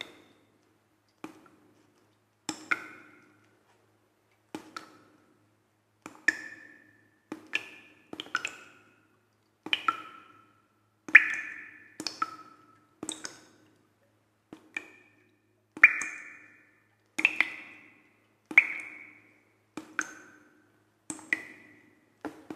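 Sparse percussive music: single struck notes, each a knock with a short ringing tone at a varying pitch, about one a second in an uneven rhythm.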